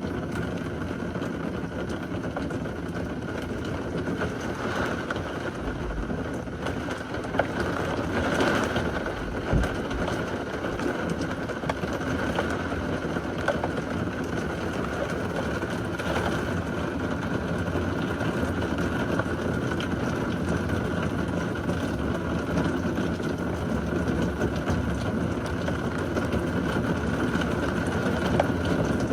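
Thunderstorm: steady rain with low rolling thunder that swells about five to ten seconds in.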